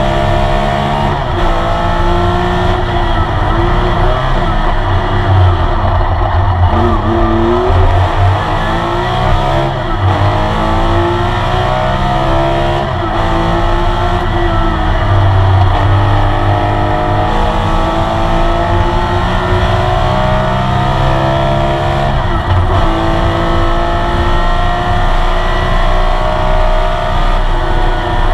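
Porsche 911 RSR's flat-six engine heard from inside the cockpit at racing speed, its pitch climbing as it revs out and dropping sharply several times as the driver shifts and lifts for corners.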